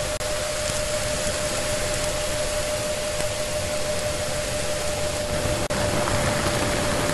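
Deep-ocean hydrophone recording of a ship's propeller: a steady wash of noise with a constant hum tone running through it, briefly cutting out twice, about five and a half seconds apart.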